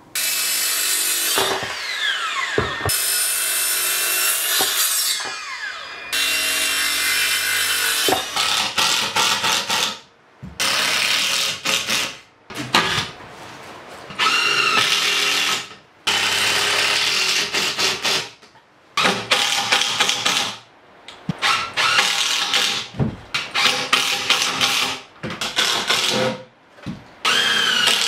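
Cordless impact driver driving screws into softwood framing lumber, in repeated runs a second or two long with short pauses between. In the first few seconds a power tool motor's pitch falls away twice as it winds down.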